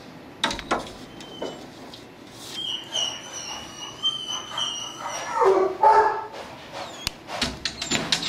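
Dogs barking and yipping, with a high, thin, broken whine in the first half and a louder call past the middle, plus a few sharp knocks.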